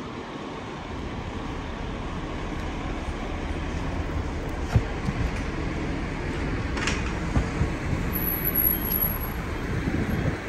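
Busy city avenue ambience: a steady rumble of road traffic passing on a multi-lane street, swelling slightly, with a few knocks and a sharp click about seven seconds in.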